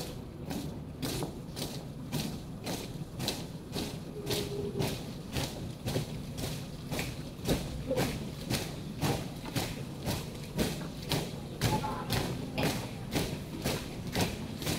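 A marching troop's feet stamping in unison on wet pavement, an even beat of about two steps a second.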